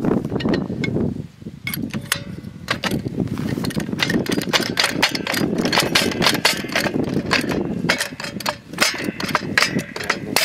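Metal clinking and clanking of a heavy chain and hook against a steel T-post and a hydraulic floor jack as the hook is moved down the post. Many short clicks, coming thicker near the end, over a low rumbling noise.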